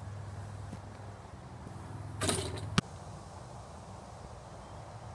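A steady low hum, with a brief rustling burst about two seconds in and a single sharp knock just after it.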